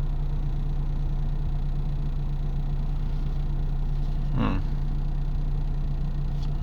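A steady low hum with an even tone, unchanged throughout; no sound from the camera.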